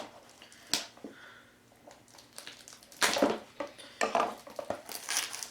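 Cardboard packaging being handled: two sharp taps near the start, then rustling and scraping from about three seconds in.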